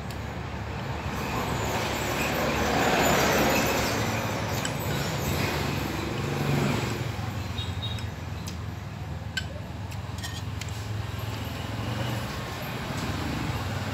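A road vehicle passing nearby, its noise swelling over a couple of seconds and fading away, over a steady low hum. There are a few light clicks of chopsticks against a porcelain rice bowl.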